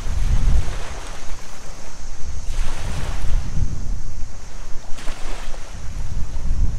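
Ocean surf washing onto a beach, swelling and easing in slow surges over a low, steady wind rumble.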